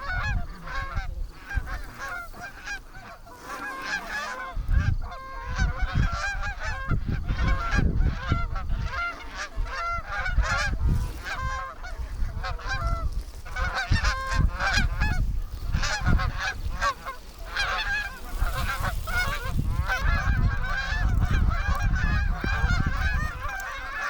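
Canada goose honks and clucks, many overlapping in a rapid, continuous chorus, with a low rumble underneath from a few seconds in.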